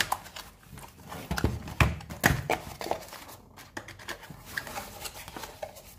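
Cardboard box and packaging being opened and handled by hand: irregular knocks, taps and scrapes, with a cluster of louder knocks about two seconds in.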